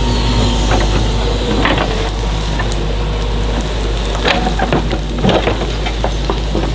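Excavator diesel engine running steadily, with scattered knocks and clatter from the digging, loudest a little past the middle.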